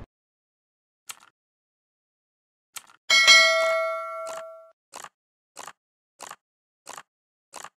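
Subscribe-button animation sound effects: a soft mouse click about a second in, a short tick, then a notification-bell ding that rings for about a second and a half, followed by five short hits evenly spaced about two-thirds of a second apart.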